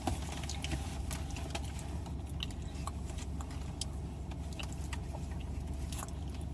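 Steady low hum of an idling car heard inside the cabin, with scattered light clicks and small rattles over it.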